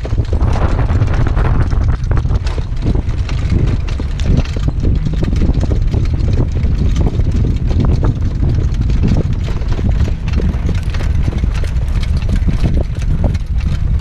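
Hoofbeats of a harness horse trotting on a dirt track, heard close from the sulky it pulls, under a heavy wind rumble on the microphone.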